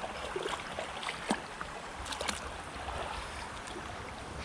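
Creek water running steadily, with scattered light clicks and knocks and a brief low rumble about halfway through.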